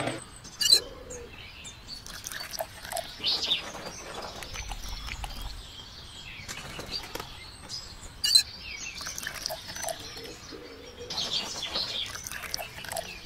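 Small birds chirping now and then, with two sharp clicks, one about a second in and one around eight seconds.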